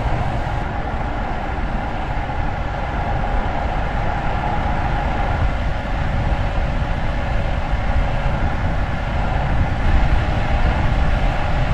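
Steady vehicle running noise, a continuous rumble that stays even with no distinct events.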